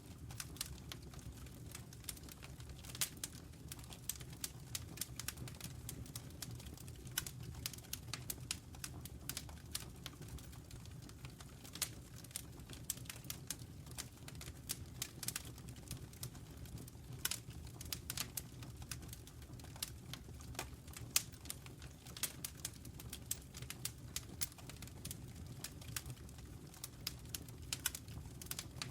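Wood fire burning in a fireplace, crackling with irregular sharp pops and snaps over a steady low rumble of the flames.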